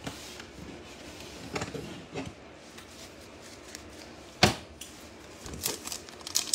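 Trading cards being handled and set down on a stack on a tabletop: light taps and clicks, with one sharp knock about four and a half seconds in. Near the end the crinkle of a foil card pack being picked up begins.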